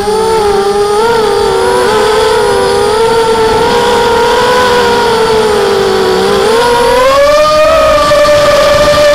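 Tarot 250 FPV quadcopter's four DYS brushless motors spinning Gemfan 5030 props, a close cluster of whining tones that waver with throttle, rising in pitch about seven seconds in and holding higher, heard through the onboard camera's microphone.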